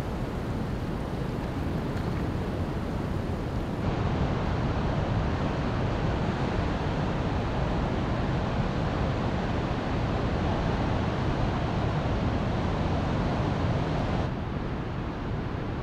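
Ocean surf breaking on a beach: a steady, even rush of waves that comes in louder about four seconds in and drops back to a quieter outdoor rush of wind near the end.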